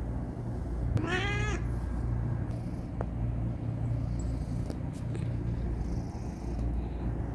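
Persian cat purring steadily, with one short meow about a second in.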